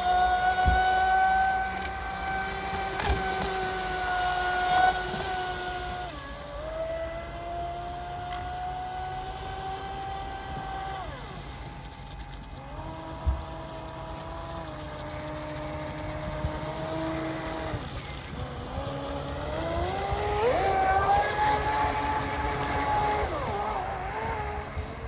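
Electric RC speedboat on a 6S battery running flat out, its motor giving a high whine that holds steady, drops sharply and climbs again several times as the throttle and distance change, highest about 20 seconds in. A single sharp knock about 13 seconds in.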